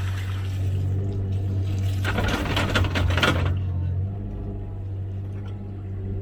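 Komatsu PC16 mini excavator's diesel engine running steadily. About two seconds in, a loud rush of splashing, pouring water lasts about a second and a half.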